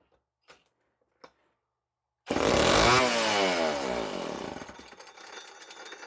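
Homelite C7 80 cc two-stroke chainsaw engine catching about two seconds in, loud and high at first, then its revs falling away over the next few seconds. The freshly rebuilt carburettor is now pulling fuel. A few faint clicks come before it.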